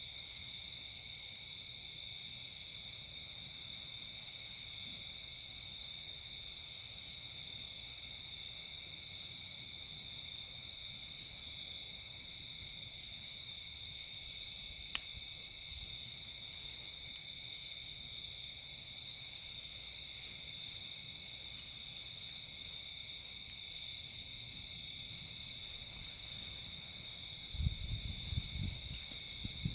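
A steady, high-pitched insect chorus, with a few isolated sharp pops from a crackling campfire. A short spell of low rumbling comes near the end.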